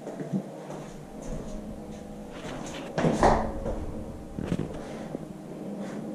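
A few knocks and bumps, like a cabinet or door being handled, in a small bathroom: three of them, the loudest about three seconds in, over a steady low hum.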